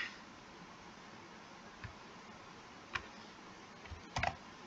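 A few isolated computer mouse clicks over faint room hiss: one about three seconds in and a quick pair just after four seconds, as a line of text is selected.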